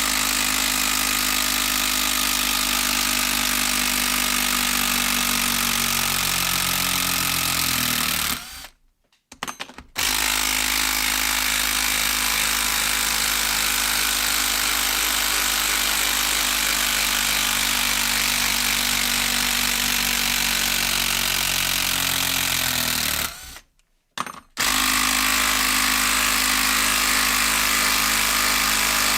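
Makita 12V brushed impact driver hammering steadily as it backs out Timberlok screws one after another. It stops twice, briefly, as each screw comes free, its motor pitch dropping as the trigger is let go, then starts hammering again on the next screw.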